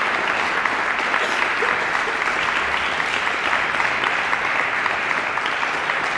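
Audience applauding: steady, dense clapping from a full hall.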